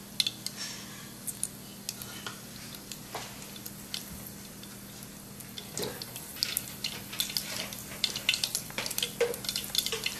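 Mustard seeds sizzling in hot oil in a stainless steel saucepan, with scattered sharp pops and crackles that grow much more frequent from about six seconds in as the seeds start to pop.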